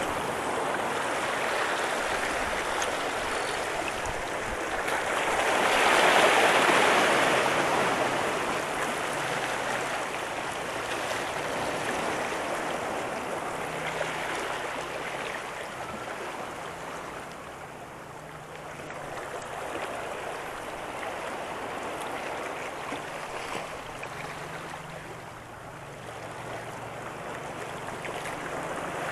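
Small sea waves washing and sloshing over the boulders of a rock breakwater, swelling to their loudest about six seconds in, then rising and falling more gently.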